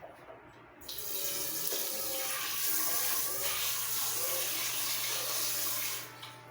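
Kitchen sink tap running with a steady rush of water that starts about a second in and shuts off near the end.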